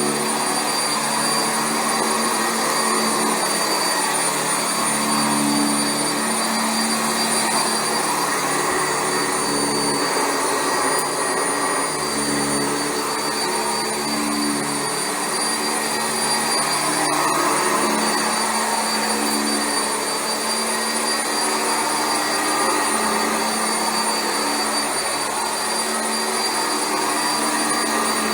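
Sanitaire SC679J commercial upright vacuum cleaner running on carpet: a steady rush of air with a constant high motor whine, and a low hum that shifts slightly every couple of seconds.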